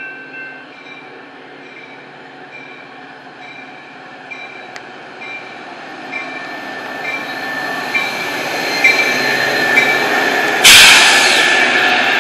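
Grade-crossing bell dinging steadily about twice a second as a Metra diesel locomotive approaches, its rumble growing louder. Near the end the locomotive arrives alongside with a sudden loud rush of noise and a squeal from the train.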